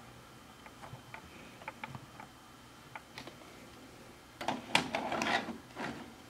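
VHS cassette pushed into the tape slot of a Magnavox MWR20V6 DVD/VHS combo deck and drawn in by the loading mechanism, a cluster of clicks and clatter about four and a half seconds in. Light scattered clicks come before it.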